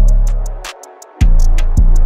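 Background music beat: a deep bass drops in at the start under quick, even hi-hat ticks and a few snare-like hits. The bass comes back in with a run of hits about a second in.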